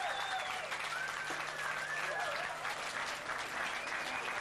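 Audience applauding and cheering, with thin whistles rising and falling above the dense clapping.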